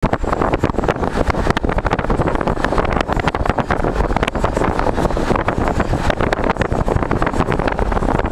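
Wind buffeting the microphone of a camera held out sideways from a moving car: a loud, gusty, uneven rumble over the car's road noise.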